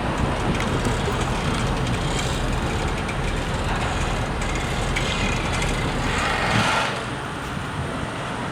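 Steady rumble of heavy engines and road traffic.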